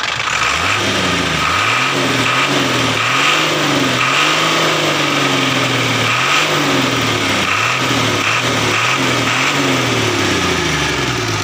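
Diesel truck engine revved repeatedly from idle, its pitch rising and falling with each blip of the throttle and one longer rev about halfway through. These are test revs after a manual adjustment of the injector nozzles, made to cure white exhaust smoke under throttle.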